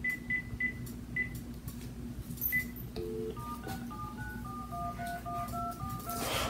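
Phone handset dialing: a few short high key beeps, then a brief dial tone, then a quick run of about ten touch-tone (DTMF) dialing tones as the number goes out.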